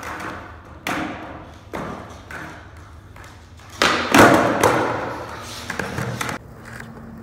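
Skateboard on a concrete floor: a series of sharp clacks and thuds as the board is popped and landed, the loudest about four seconds in, with wheels rolling on the concrete between the hits.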